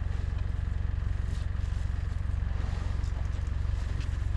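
Vehicle engine idling steadily with a low, even hum, and a few faint scrapes or rustles over it.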